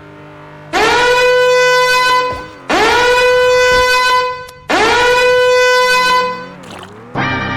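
Loud horn sound effect blown three times, each blast about a second and a half long, sliding up into its note and then held steady on the same pitch. A different short pitched sound starts just before the end.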